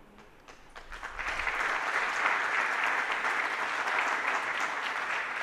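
Audience applauding. The clapping starts softly about a second in, swells quickly and then holds steady.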